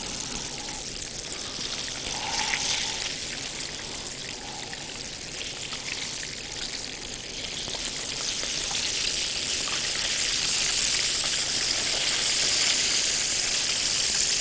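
Oat-coated chicken escalopes frying in oil over medium heat: a steady crackling sizzle that grows louder over the last several seconds.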